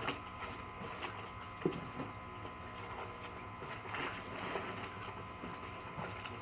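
Faint handling noise of siren-kit parts and packaging being moved about, with a few light clicks and knocks, over a steady low hum.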